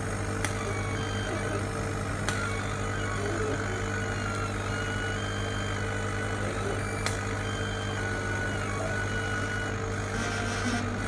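Cheap 40 W CO2 laser cutter running a cutting job on MDF: a steady machine hum, with the stepper motors whining in short tones of changing pitch as the head moves, and three sharp clicks.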